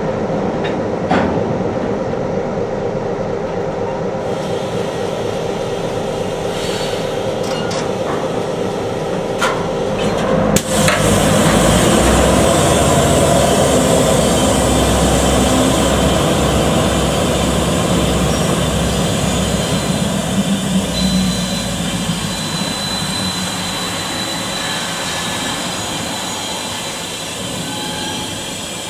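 Norfolk Southern diesel locomotives running at low speed, with a few sharp metallic clanks in the first ten seconds. About ten seconds in, the engines load up with a deep rumble that eases off over the last several seconds.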